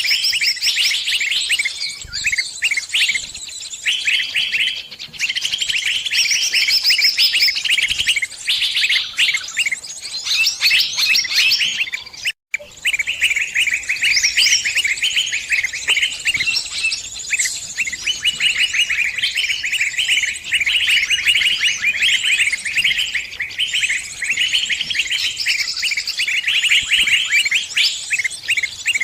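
Small birds, sunbirds, chirping and twittering in a dense, rapid, high-pitched stream that cuts out briefly about twelve seconds in.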